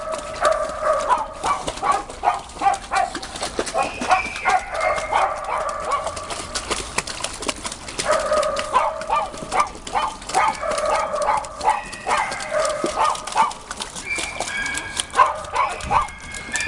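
A dog whining in long, steady high notes held for a few seconds at a time, with short breaks, over the small splashes and slaps of a dog paddling in a shallow plastic pool.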